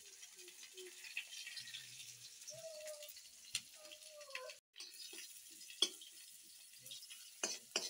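Mushrooms frying in oil in an iron wok over a wood fire: a faint, steady sizzle, with a few sharp clicks of the spatula against the pan, one about six seconds in and two near the end.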